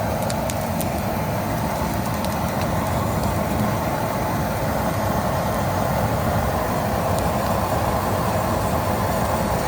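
Large brush-pile fire burning with a steady rushing roar and a few sharp crackles in the first second or so.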